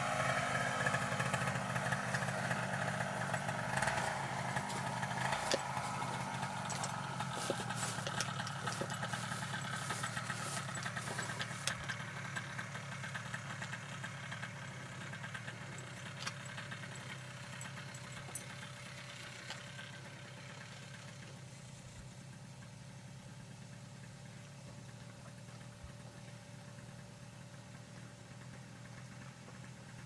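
A small engine idling steadily, growing gradually fainter, with scattered light clicks in the first half.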